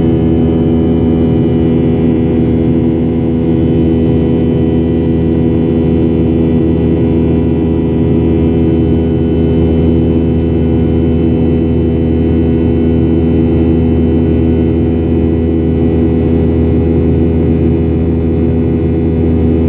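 Boeing 737-800's CFM56 engines heard from inside the cabin in flight: a steady drone with a low rumble under a stack of unwavering tones, the strange engine noise that the passenger had not heard before.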